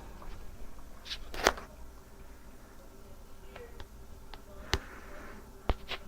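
Several sharp clicks and taps, the loudest about one and a half seconds in, over a faint steady hum.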